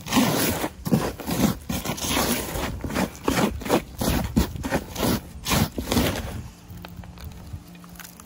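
Potting soil being scooped and packed into a plant pot: repeated rough scraping and crunching strokes, about two or three a second, that stop about six seconds in.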